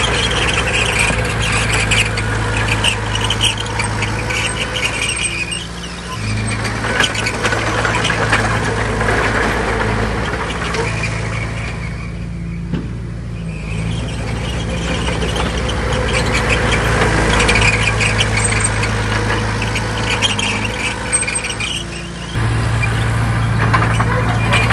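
Heavy diesel engine of a tracked earthmoving machine working, with metallic squealing and clanking from the tracks and undercarriage. The engine note steps up about six seconds in and again near the end.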